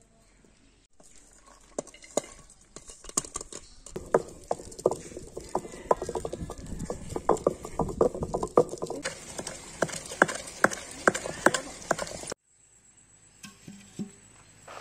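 Traditional stone wet grinder crushing diced coconut: the cylindrical grinding stone knocks and grates against the stone basin in a fast, uneven run of clicks and knocks. The knocking thickens about four seconds in and cuts off suddenly a couple of seconds before the end.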